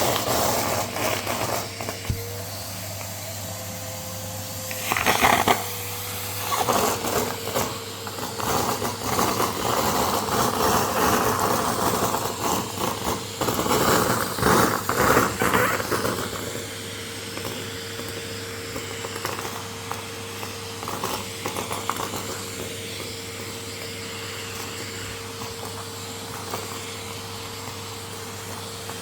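Vacuum cleaner running with a steady whine and hum, sucking up shredded brown paper: irregular crackling and rattling bursts as the paper goes up the nozzle, thickest from about five seconds in until past the middle, then the motor runs on more evenly.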